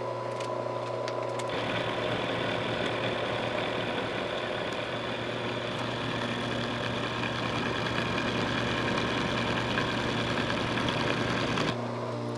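Milling machine running with a steady hum. About a second and a half in, the cutter goes into metal, a dense cutting noise with a high ringing edge that holds steady for about ten seconds and stops abruptly shortly before the end.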